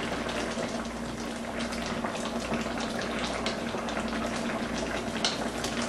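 Tomato sauce with fish simmering in a wok: a steady bubbling hiss with many small pops, over a steady low hum.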